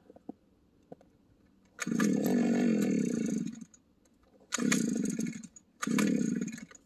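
Gas-powered ice auger being pull-started: its small engine fires and runs for about two seconds, then dies, and on two more pulls it catches again for about a second each time before cutting out.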